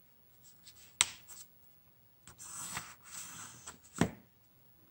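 Paper and cardstock being handled on a craft table: a sharp click about a second in, a stretch of rustling and sliding in the middle, and another sharp click near the end.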